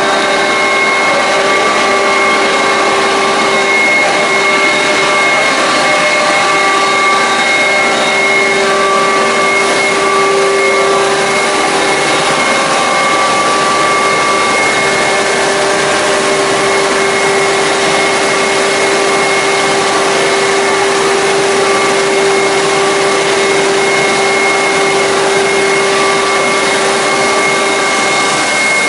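Hydraulic machine test rig running steadily: a motor-driven pump or turbine giving a loud, even machine noise with a steady multi-tone whine.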